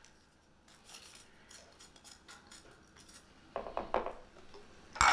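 A spoon scraping packed brown sugar out of a measuring cup into a mixing bowl: soft scrapes at first, then a few sharp taps of the spoon against the cup, the loudest a single knock near the end.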